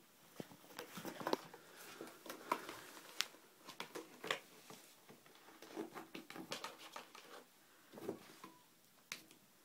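Kitten pawing and scrabbling at a cardboard puzzle box with toys inside: an irregular run of light taps, scratches and rustles of cardboard.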